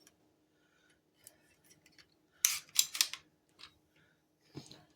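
Sharp metallic clicks and snaps of a Hart heavy-duty staple gun being handled, with a cluster of several loud clicks about two and a half seconds in and a duller knock near the end.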